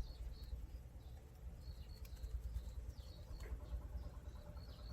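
Crickets chirping in short, irregular high chirps, over a low rumble of wind on the microphone.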